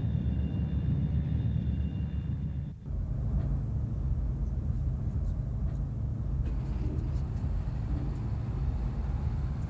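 Jet aircraft engine noise: a steady low rumble with a thin high whine over it. About three seconds in, the whine stops with a brief dip and the low rumble carries on.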